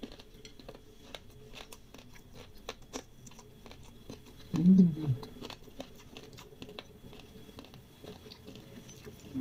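Close-miked chewing of fried noodles: many small, sharp, wet mouth clicks and crunches. About five seconds in, a short hummed 'mm' that falls in pitch.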